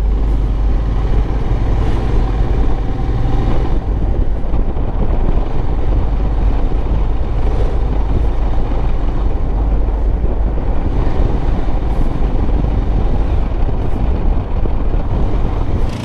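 Motorcycle riding along a road: a loud, steady rumble of wind on the microphone mixed with engine and road noise.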